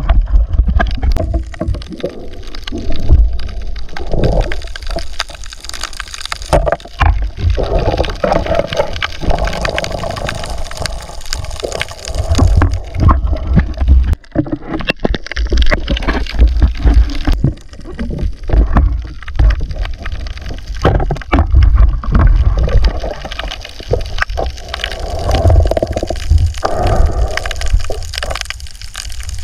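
Muffled underwater water noise, sloshing and gurgling, with irregular knocks and thumps throughout.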